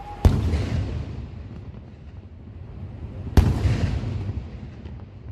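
Aerial firework shells bursting twice, about three seconds apart. Each sharp bang is followed by a rolling rumble that dies away over a couple of seconds.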